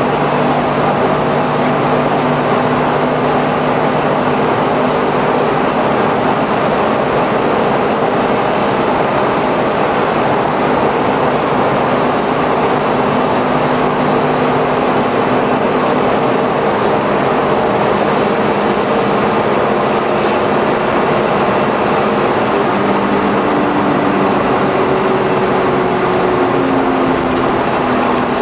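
Interior running sound of a Suzuki Every kei van with Auto Gear Shift cruising at highway speed on a wet road: steady tyre and road noise with the low hum of its 660 cc three-cylinder engine and drivetrain.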